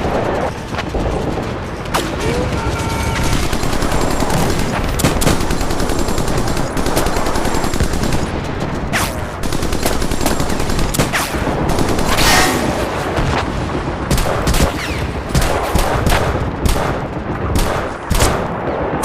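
War-film battle sound effects: continuous rapid gunfire and machine-gun fire, with a louder burst about twelve seconds in.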